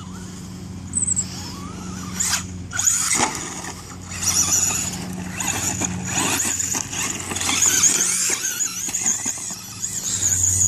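Radio-controlled monster truck driving over grass and dirt, its motor giving a high-pitched whine that rises and falls again and again with the throttle.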